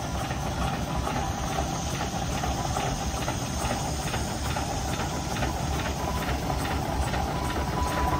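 Steam traction engine running slowly under way, with regular beats from its exhaust over a steady steam hiss and low rumble. A thin steady high tone joins in about six seconds in.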